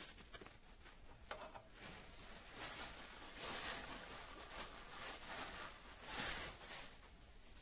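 Paper towel scrubbing and rustling as it wipes oil off a steel lever arm and its brass test roller, in repeated rubbing strokes that are loudest about three and a half and six seconds in. A couple of light knocks from handling the metal arm come in the first second and a half.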